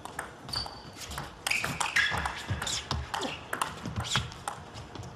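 Table tennis rally: the celluloid ball clicking sharply off rubber paddles and the tabletop in quick irregular succession, with short high squeaks between the hits.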